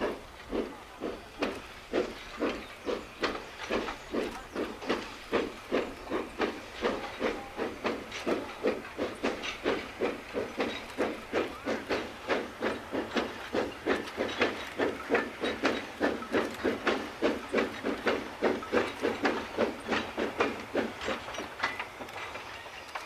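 C2 class narrow-gauge steam locomotive working, its exhaust chuffing in an even rhythm of about three to four beats a second with a steam hiss. The beats grow a little louder, then fall away near the end.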